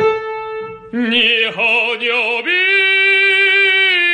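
Operatic singing voice holding long notes with strong vibrato. It drops to a lower note after about a second and rises to a higher, held note about two and a half seconds in.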